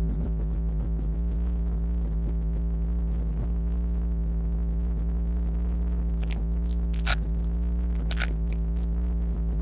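Ford 351 small-block V8 idling steadily just after a key start. The owner suspects a vacuum leak under the intake manifold is still present. A few light ticks come in near the middle and toward the end.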